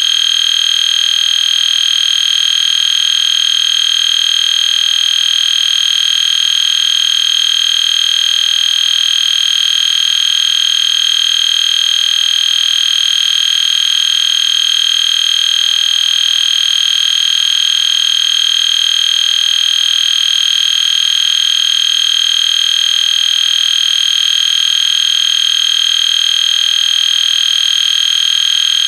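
EST Genesis fire alarm horn sounding continuously: one loud, steady, high-pitched electronic horn tone with no pauses or pulsing, edited into a continuous pattern.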